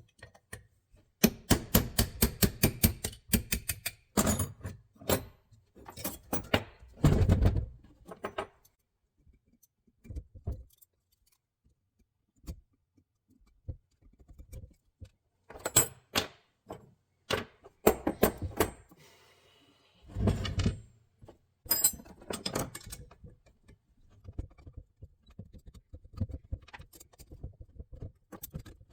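Metal carburetor parts and hand tools clinking, clattering and knocking on a workbench as a pair of Solex P40-II carburetors is taken apart, with quick runs of rattling clicks and single knocks between quieter pauses.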